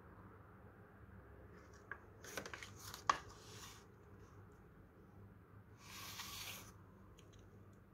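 Plastic blister packaging and its cardboard backing card being handled: a cluster of crinkles and clicks about two seconds in, with one sharp click, then a short plastic rustle near six seconds.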